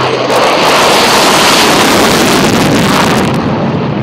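Single-engine F-16 fighter jet taking off on afterburner: a loud, rushing jet roar that swells in the first half second, holds steady, and eases slightly near the end.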